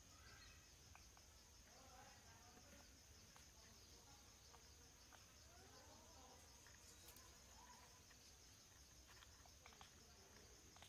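Near silence: faint forest ambience, with a steady high-pitched insect drone and a few faint, brief calls.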